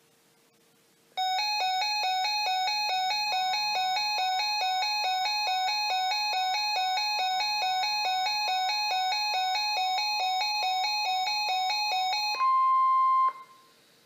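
Weather radio receiver's built-in alert alarm: a loud, rapidly repeating electronic chime of stepped pitches for about eleven seconds, signalling an incoming warning. It is followed by a steady tone of about a second, the tail of the 1050 Hz weather-radio warning alarm tone as the receiver opens up to the broadcast.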